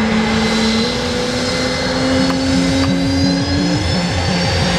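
Propeller aircraft engine running loud, with a throbbing low beat under a drawn-out note that climbs slowly in pitch and drops out about four seconds in.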